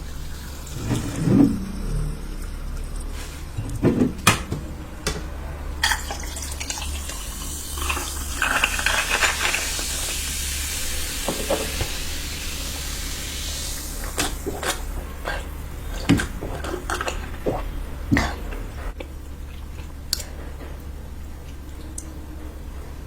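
Close-miked eating sounds of curry: wet squishing and stirring of food on a plate, with scattered clinks and knocks against the dish and a hissy rustle partway through.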